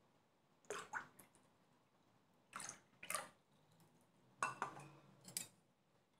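Milk splashing into a stainless steel saucepan in three short bursts, with faint room tone between them.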